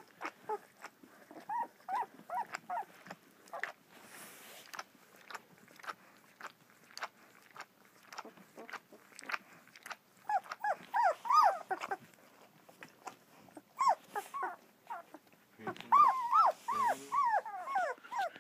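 Two-week-old German Shepherd puppies squeaking and whining in quick, high-pitched runs. The runs are loudest from about ten seconds in and again near the end, with scattered clicks between them.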